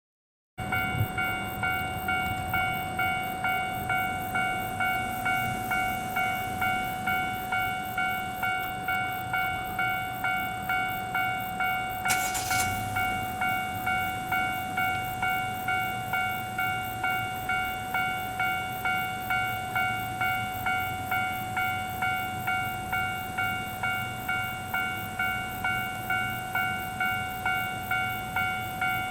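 Japanese railway level-crossing alarm ringing: an electronic bell with several high-pitched tones, pulsing about twice a second, starting suddenly just under a second in. A brief hiss about twelve seconds in.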